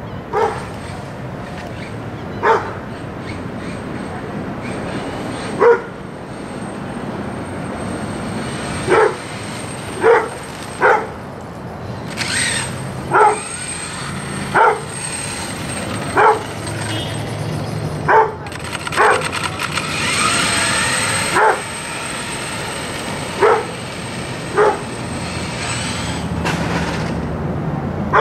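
A dog barking in single barks, about fourteen of them at irregular intervals. About two-thirds of the way through, a brief rising whine, likely the Earthquake 8e RC truck's electric motor speeding up.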